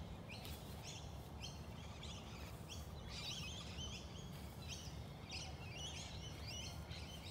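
Birds chirping again and again, busier from about three seconds in, over a steady low outdoor rumble.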